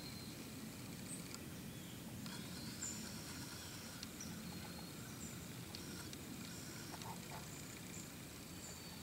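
Faint woodland ambience: a steady low background rumble with brief, high-pitched chirps of small birds scattered throughout.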